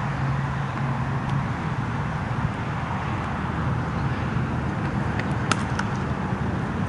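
Steady background rumble of distant road traffic. About five and a half seconds in comes a short cluster of sharp clicks, the loudest the crack of a cricket bat hitting the ball.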